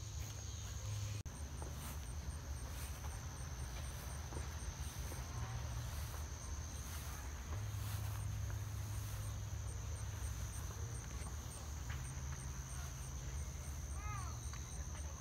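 Insects chirping outdoors: a steady high buzz with a regular pulsed chirp several times a second running over it. A low steady rumble sits underneath and is the loudest part.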